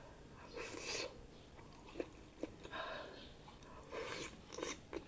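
Close-up eating sounds of someone eating noodles: chewing with a few sharp wet mouth clicks and several short breathy bursts.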